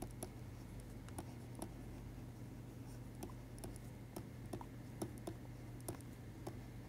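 Faint, irregular clicks and light scratches of a stylus writing on a tablet surface, several a second, over a steady low hum.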